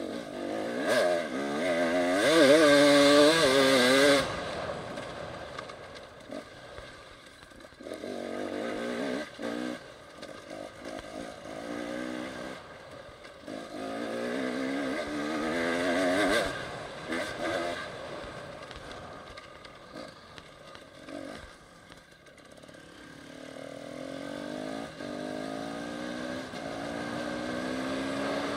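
Enduro dirt bike engine being ridden hard, revving up and falling back in repeated bursts, loudest about two seconds in. Near the end the engine note climbs steadily as the bike pulls along smoother ground.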